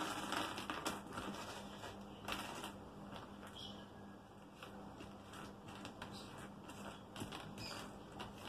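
Small aquarium air-flow control valves poured out of a plastic bag and clattering onto a tabletop, with the bag crinkling, louder in the first second or so. Then scattered light clicks as the valves are pushed around and picked over by hand.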